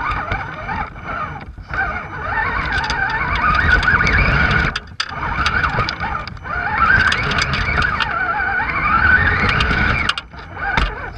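Electric motor and gearbox of an RC scale crawler on an Axial Dingo chassis whining close to the onboard camera, its pitch rising and falling with the throttle. Knocks and rumble come from the truck climbing over dirt and roots, and the sound drops briefly about five seconds in and again near the end.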